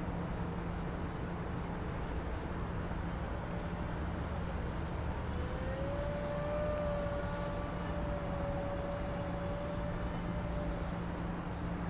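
Motor and propeller of a radio-controlled model airplane flying past, a steady drone that rises in pitch about five and a half seconds in and fades out near the end, over steady wind noise.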